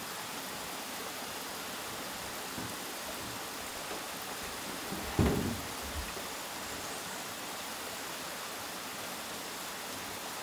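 A steady hiss with one loud thump on the plank deck about five seconds in, as the painter steps down from the paint bucket she was standing on. A lighter knock follows just under a second later.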